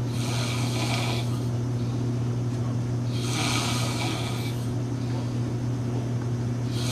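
A man snoring loudly, in breaths that come about every three seconds, over a steady low hum.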